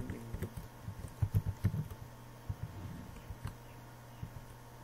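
Typing on a computer keyboard: a quick run of keystrokes over the first two seconds, then a few single key presses.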